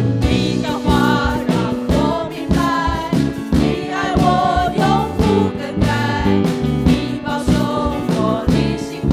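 Church worship band performing a Mandarin worship song: several singers on microphones, led by a woman, singing together over amplified band accompaniment with a steady beat.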